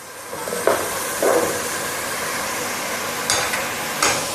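Tomato, onion and ginger-garlic paste sizzling in hot oil in an aluminium pot: a steady frying hiss as the paste is sautéed to cook off its raw smell. A few brief scrapes and knocks from the stirring spoon against the pot come through it.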